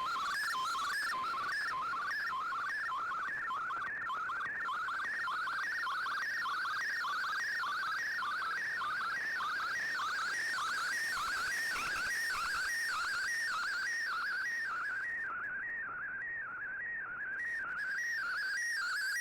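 Shortwave digital-mode data signal coming through an Icom IC-R8600 receiver: a steady warble of tones hopping rapidly up and down in a repeating pattern, with no pause.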